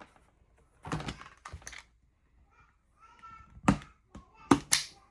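Sharp clicks and taps of craft tools and corrugated plastic board being handled on a work table: a cluster about a second in, then three single sharp clicks near the end. A child's voice is faint in the background.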